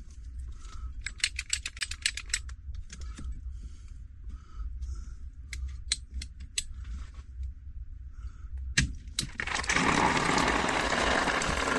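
Hand pipe cutter clicking in quick runs as it is worked through a CPVC water pipe, with a sharp snap a little before 9 seconds as the pipe is cut through. Then water gushes out of the cut line and splashes down steadily and loudly, the line still holding water.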